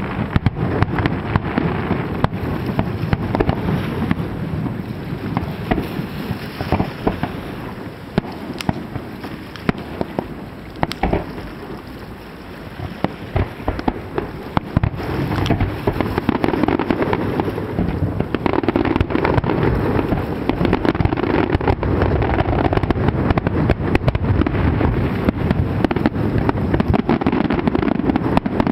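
Aerial fireworks display: shells bursting one after another in many sharp bangs over a continuous rumble. The bangs thin out and grow quieter near the middle, then a dense, louder barrage follows for the second half.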